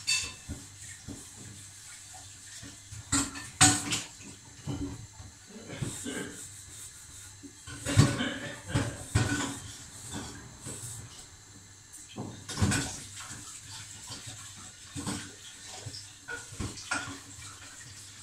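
Scattered knocks and clatter of kitchenware being handled, a few of them sharp and loud, over a faint steady hiss.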